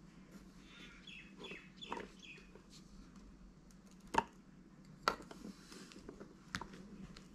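Faint scraping of a wooden spoon through crumbly bath bomb powder in a plastic mould cup, with three sharp clicks of the spoon knocking the plastic, about four, five and six and a half seconds in.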